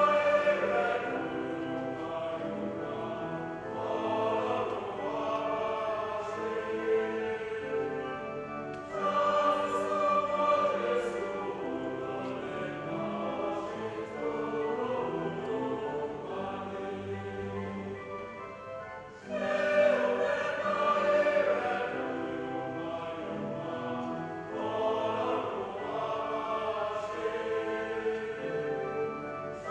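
Choir singing, with fresh phrases swelling up about nine and nineteen seconds in.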